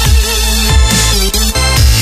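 Background electronic music, dubstep-style, with a heavy bass and a steady beat.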